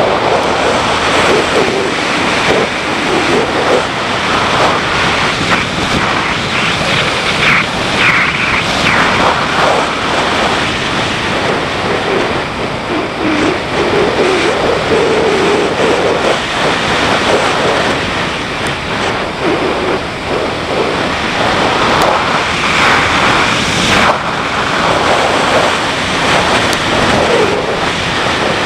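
Wind rushing over the microphone of a riding motorcycle, with the BMW G650GS's single-cylinder engine running underneath, its note shifting a little as the bike goes along.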